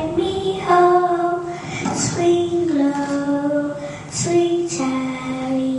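Children's voices singing a song, each note held for about half a second to a second as the melody steps up and down.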